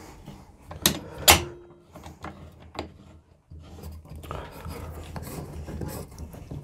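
Handling of a wooden block on a sliding miter saw's table: two sharp wooden knocks about a second in, a few lighter clicks, then steady rubbing as the block is slid into position against the fence.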